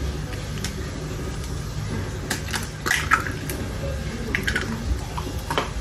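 Eggs cracked on a glass mixing bowl: a few sharp taps and cracks of eggshell against glass, the loudest cluster about halfway through.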